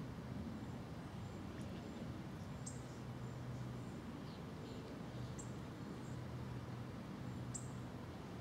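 Outdoor pond ambience: a low, steady hum that fades in and out, with a few brief high bird chirps about three times.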